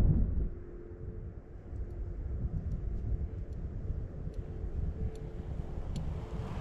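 Low rumble of wind buffeting the microphone while a chained fat bike rolls over lake ice, with a faint steady hum. A loud gust at the start drops away about half a second in.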